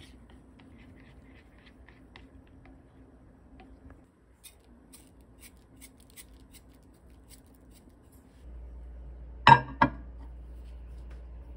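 Wooden chopsticks stirring beaten egg in a glass bowl, with soft clicks against the glass, then scattered light ticks as sesame seeds are sprinkled onto the egg. Near the end a steady low hum comes in, and two sharp knocks sound close together as the lidded glass bowl is set inside a microwave.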